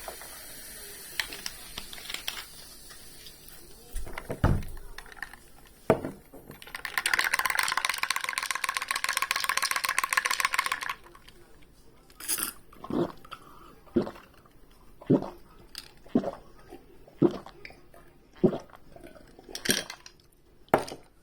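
Kitchen food-preparation sounds: scattered knocks of utensils and dishes, a dense rapid scraping for about four seconds in the middle, then a run of sharp knocks about once a second.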